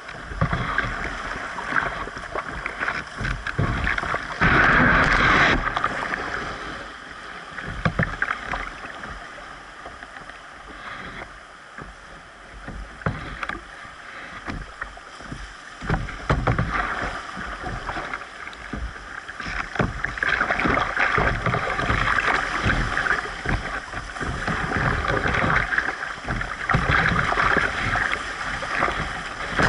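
Whitewater rapids rushing and splashing against a canoe's hull, with wind buffeting the microphone and irregular low thumps. The rush of water swells about five seconds in and again through the last third, and eases off in between.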